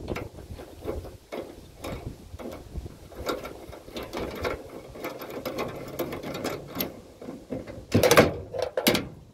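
Irregular metallic clicks and rattles of hand tools and metal parts being worked during disassembly of a small generator, with a louder clatter about eight seconds in.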